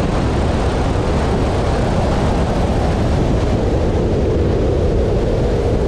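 Light airplane's engine and propeller running steadily in flight, a loud unbroken drone.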